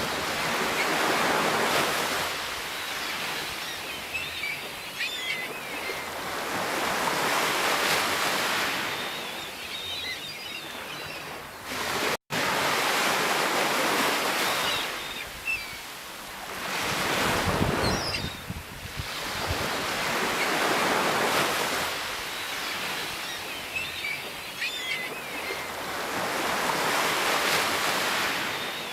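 Sea waves breaking and washing in, the surge rising and falling about every six to seven seconds. The sound cuts out for a split second about twelve seconds in.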